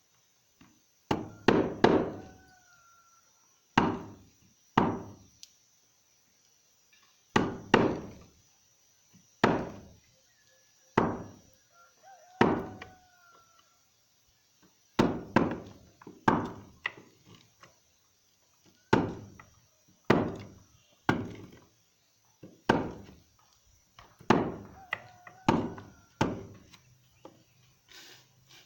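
A hammer striking during door-lock fitting work: about two dozen sharp blows at irregular spacing, often in quick pairs or runs, some followed by a short ringing.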